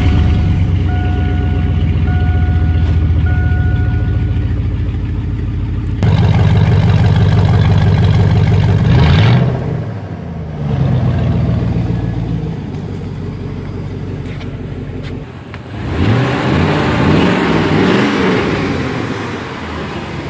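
A Chevy Silverado 1500's engine, just started on a newly installed fuel pump and fuel filter, idles steadily while a dash chime beeps a few times. It is revved up and down a couple of times midway, then in several quick blips near the end.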